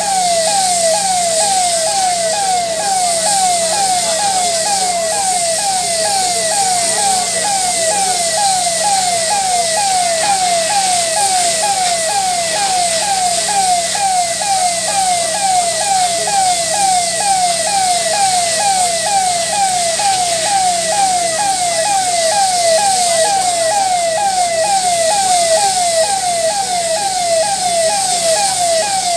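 Emergency vehicle siren sounding in quick repeated falling sweeps, about two a second, steady in level over a constant hiss, cutting off abruptly near the end.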